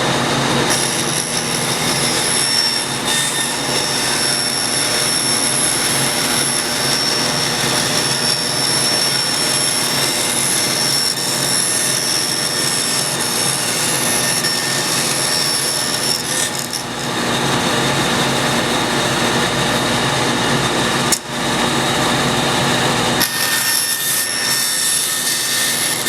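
A 20-inch bandsaw running with its blade making a freehand curved cut in wood. The machine runs steadily throughout, with a high whine that drops out for several seconds in the second half and then returns near the end.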